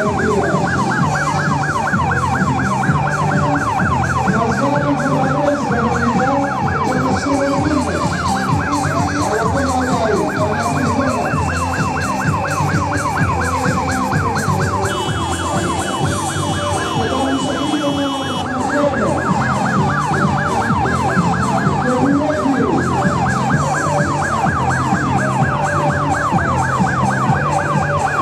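Ambulance siren sounding a fast, repeating rising-and-falling yelp that goes on without a break and softens for a few seconds past the middle, over the murmur of a crowd.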